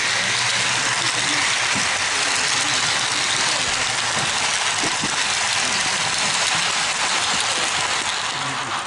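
Model train running past on the layout: a steady rolling hiss of wheels on the track, with the engine hum of a sound-equipped model diesel locomotive underneath.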